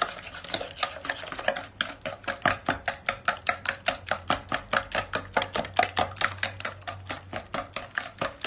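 Eggs, sugar and oil being beaten by hand in a bowl, the utensil clicking against the bowl in a fast, even rhythm of about five strokes a second.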